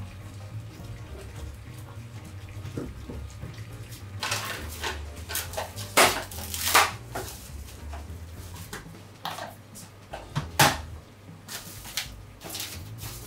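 Plastic cling wrap crinkling in short bursts as a pack of leftover king oyster mushrooms is handled and wrapped, loudest about six seconds in and again near ten and a half seconds, over a low steady hum.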